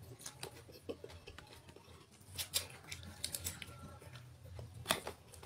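Close-up eating sounds of a person eating rice by hand: quiet chewing with scattered wet mouth clicks, a few sharper ones about two and a half and five seconds in, over a faint low hum.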